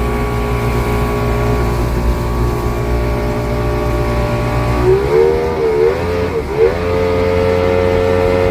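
Boat's main motor running under way on plane. About five seconds in its pitch wavers up and down, then it settles into a steady, slightly higher note.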